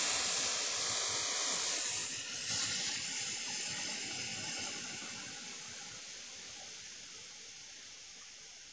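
Hot air rework station blowing a steady hiss of hot air to desolder a component, fading away gradually.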